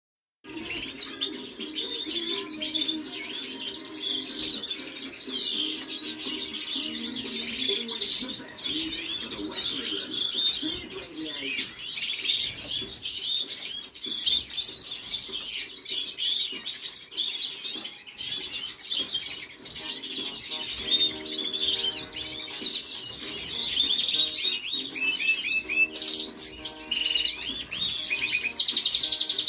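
Canaries chirping and singing, a continuous twitter of high notes with fast rolling trills near the end.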